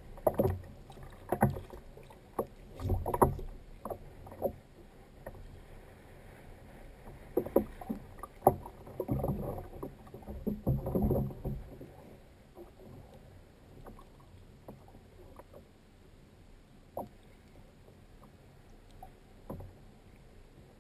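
Irregular knocks and bumps on a plastic fishing kayak while a pollack is reeled in and lifted aboard. They are busy and fairly loud over the first twelve seconds, then thin out to the odd single knock.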